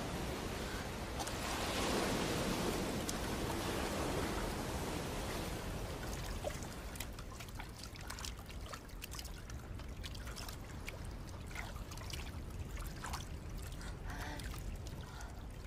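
Quiet trickling water with scattered faint clicks. It is a little louder in the first few seconds.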